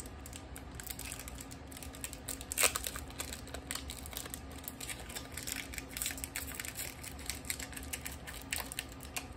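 Foil wrapper of a trading card booster pack being torn and peeled open by hand: a run of small, irregular crinkles and crackles, with one sharper tear about two and a half seconds in.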